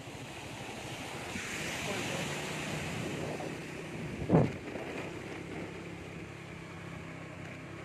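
Motorbike engine running steadily while riding, with wind rushing over the microphone that swells for a couple of seconds. A short, loud bump hits the microphone about four seconds in.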